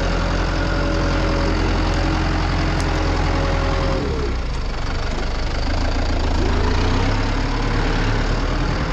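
Farm loader's engine running close by. Its whine drops in pitch about four seconds in and climbs back up a couple of seconds later, as the machine eases off and picks up again.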